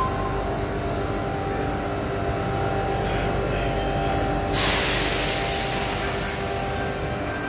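A Sydney Trains electric train standing at the platform, its onboard equipment humming steadily in several tones. About four and a half seconds in comes a sudden loud hiss of released air, which fades over the next couple of seconds.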